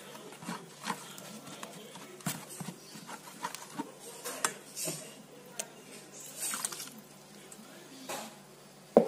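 Spatula stirring soaked oats and warm water in a stainless steel bowl: irregular wet scrapes and light taps against the bowl, with a louder thump near the end.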